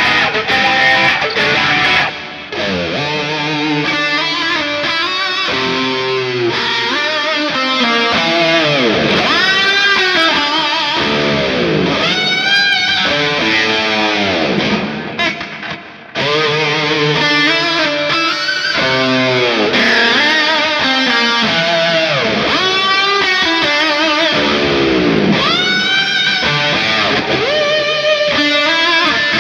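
Ibanez PIA electric guitar played through an amp-simulator plugin with a driven tone, running lead lines full of string bends and vibrato. It briefly drops away about two seconds in and again about halfway through.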